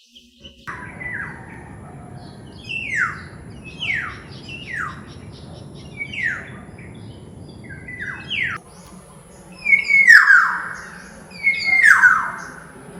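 Black-naped oriole giving harsh calls that each slide steeply down in pitch, about one a second, then two louder, drawn-out calls near the end.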